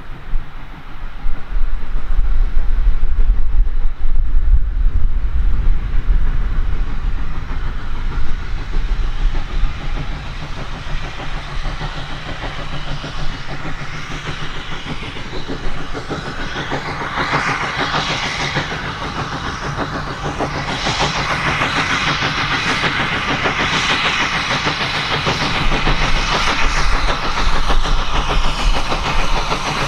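Heritage steam train running on the line, its wheels clattering over the rail joints. The clatter builds from about halfway through as the train comes close. A heavy low rumble fills the first several seconds.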